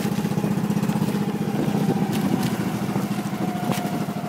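Outrigger boat (bangka) engine running steadily underway, with a fast, even chugging.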